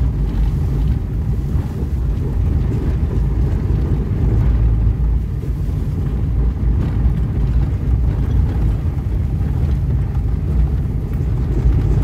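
Car driving, heard from inside the cabin: a steady low road and engine rumble with faint knocks and rattles from the body.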